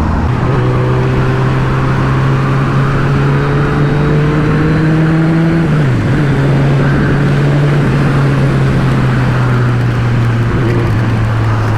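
Motorcycle engine running at riding speed under a steady rush of wind noise. The engine note climbs slowly, drops briefly about halfway through as for a gear change, then holds steady.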